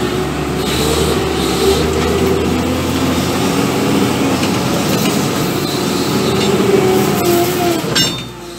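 New Holland W130 wheel loader's diesel engine working under load, heard from the operator's cab, its pitch rising and falling as the loaded bucket is raised. About eight seconds in the engine eases off and the level drops, with a few short clicks.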